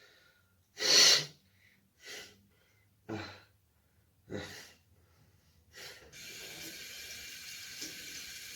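A man ill with COVID-19 breathing in short, labored gasps: five separate breaths about a second apart, the first, about a second in, loudest and harsh. About six seconds in, a steady hiss starts and runs on.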